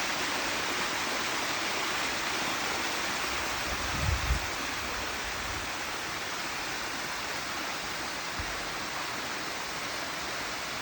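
Artificial waterfall pouring down a rock face: a steady rush of falling water. A brief low bump about four seconds in.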